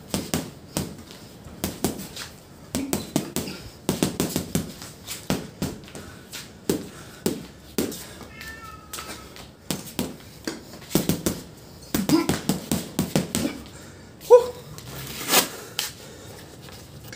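Boxing gloves punching a hanging heavy bag, sharp thuds coming in quick flurries of several hits a second. Near the end the punching stops; a brief squeal-like call is followed by one loud sharp knock.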